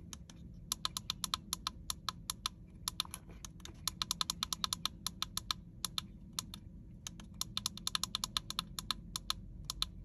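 Small tactile push buttons on a handheld Afterburner diesel heater controller clicking, pressed again and again in quick runs to step through the digits of a password, with a short lull about two-thirds of the way through.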